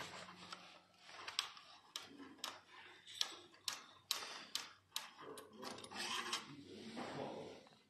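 Irregular sharp clicks and rubbing from a hand working the front wheel's axle end and quick-release on a fat-tyre bike, beside the brake disc, while the wheel is taken off.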